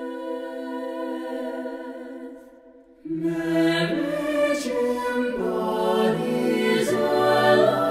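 A cappella mixed chorus singing without accompaniment. Upper voices hold a chord that fades away, then the full choir, basses included, comes in louder about three seconds in.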